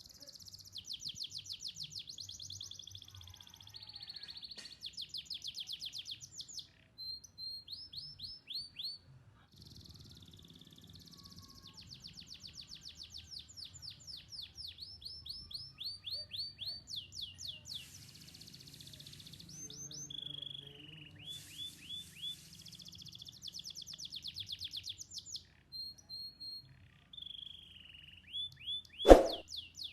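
Domestic canary singing: long trills of fast repeated chirping notes, some phrases made of notes sweeping down in pitch, with short pauses between phrases. A single sharp knock comes near the end.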